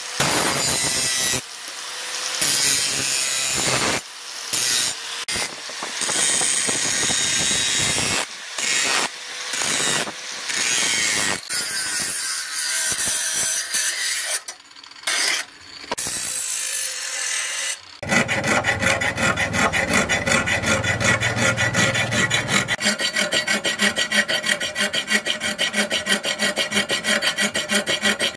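Electric angle grinder grinding the steel blade of a knife made from a tractor disc, in short bursts broken by abrupt cuts. From about 18 s, a round file rasps back and forth inside the steel heart-shaped handle in steady, even strokes.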